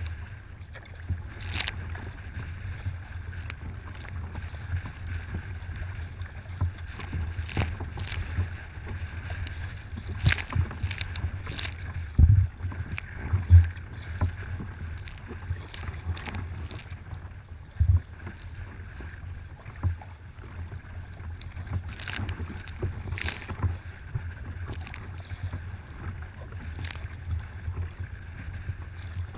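Choppy waves slapping and splashing against a kayak's bow over a steady low rumble of water and wind, with irregular sharp splashes throughout. The hardest hits come about 12, 13.5 and 18 seconds in.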